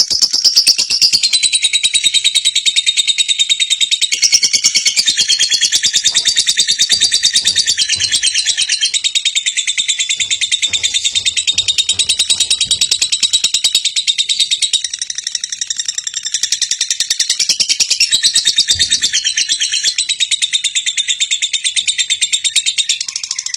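Lovebird ngekek: one long, unbroken chattering trill of rapid, shrill, evenly repeated notes, sustained with no pause for breath, the kind of extended ngekek prized in Indonesian lovebird song contests.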